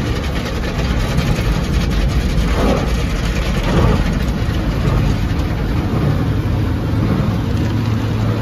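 Steady low rumble and noise heard inside a car's cabin, with a low steady hum setting in about halfway through.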